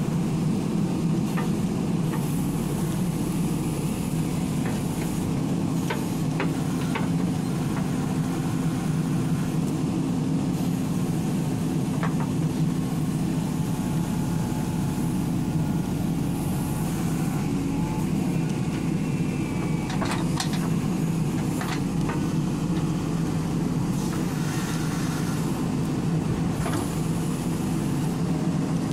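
JCB backhoe loader's diesel engine running steadily under load while the backhoe digs, with occasional short clicks and knocks.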